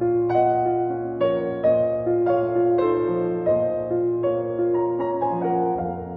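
Background music: a gentle piano melody with notes changing about every half second over sustained chords.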